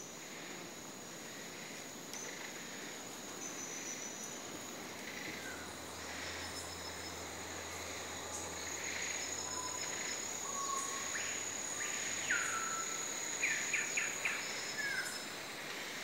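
Rainforest insects keep up a steady high-pitched trill, with scattered bird chirps and whistles over it, including a falling whistle about three-quarters of the way through and a quick run of notes near the end.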